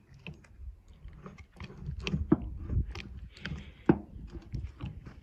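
Lever-action grease gun being pumped into the grease nipples of a tractor hedge cutter's arm: irregular clicks, creaks and crunches of the lever and coupler, with one sharper knock a little before four seconds in.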